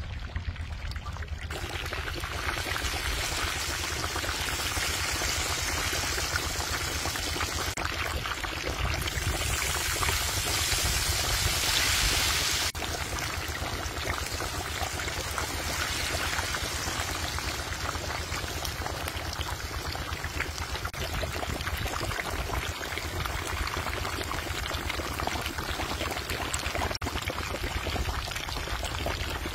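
Hot oil sizzling steadily around battered chicken deep-frying in a wide pan, starting about a second and a half in. It grows louder for a few seconds near the middle, then drops off suddenly.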